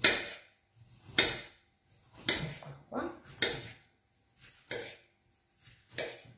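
Kitchen knife slicing through a peeled tarocco orange and striking a wooden cutting board, about seven strokes at uneven intervals.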